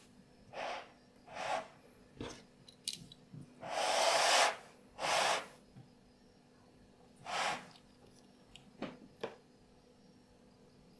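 Snap-off utility knife cutting leather along a paper pattern on a glass cutting plate: about eight short, irregularly spaced scraping strokes, the loudest and longest about four seconds in.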